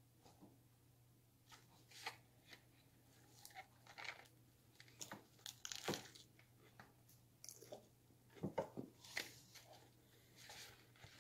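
Quiet, scattered crinkling, tearing and crunching of food and its packaging being handled, with the loudest crunches about six and nine seconds in.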